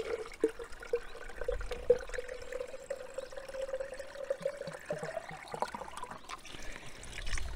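Spring water pouring and trickling, with a steady ringing note that climbs slightly and fades about five and a half seconds in.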